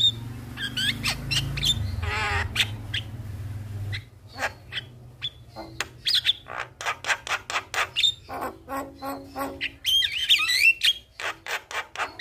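Javan myna song: a rapid run of harsh clicks and squawks mixed with rising whistles and a warbling trill. A low hum under the song stops about four seconds in.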